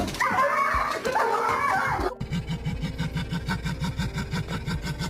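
A dog whining in high, wavering cries for about two seconds. It cuts off suddenly and is followed by a low, steady rhythmic pulsing of about three beats a second.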